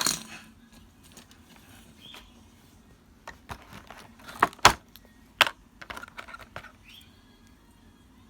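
Hard plastic toy pieces clicking and knocking together as they are handled, in irregular sharp clicks with the loudest few near the middle.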